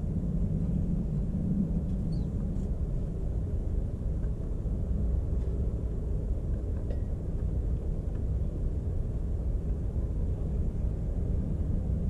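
Steady low rumble of a vehicle engine running, with a few faint, short bird chirps.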